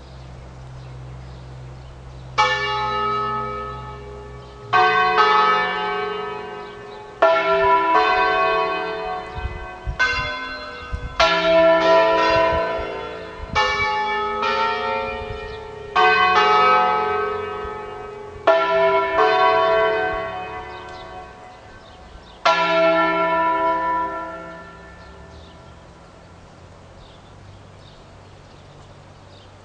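Five tuned Ambrosian church bells (E, F sharp, G sharp, A, B) ringing a sequence of single strokes of different pitches at uneven spacing, each stroke left to ring out. The strokes stop about two-thirds of the way through, and the last one fades away.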